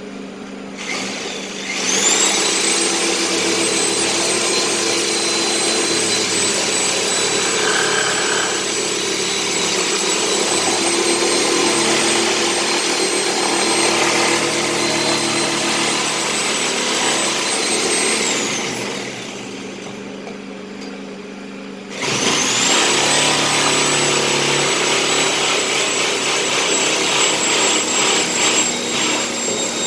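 High-speed power tool motor spinning up with a high whine, running steadily, winding down, then starting up again a few seconds later.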